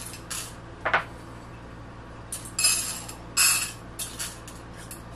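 Pinches of dry brown rice dropped into the cups of a metal muffin tin: several short rattles as the grains scatter and bounce on the metal, spaced about a second apart.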